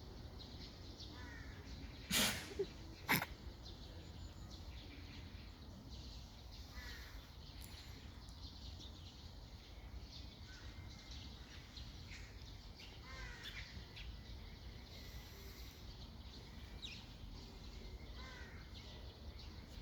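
Tiger giving two short, explosive coughs about a second apart, a little after two seconds in. Birds chirp faintly throughout.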